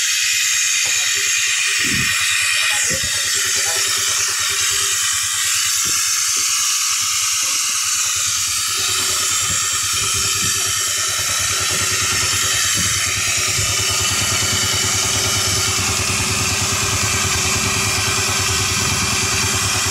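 A loud, steady hiss, with a boat engine idling low underneath from about halfway through.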